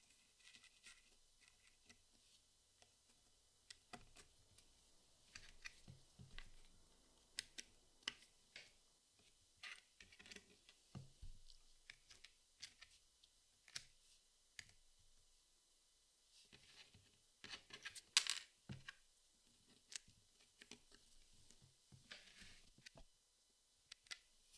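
Jigsaw puzzle pieces being handled and fitted together: irregular small clicks and light scrapes, with a louder cluster of clicks and rustling about 18 seconds in.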